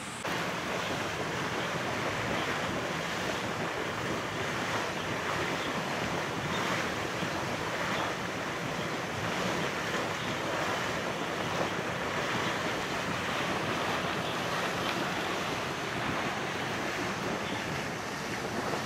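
Hot-spring geyser spouting: a steady rush and splash of boiling water jetting from a rocky pool.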